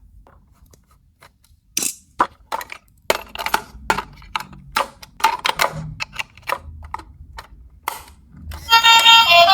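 Irregular sharp clicks and knocks of plastic toys being handled. Near the end a loud, bright electronic toy melody starts.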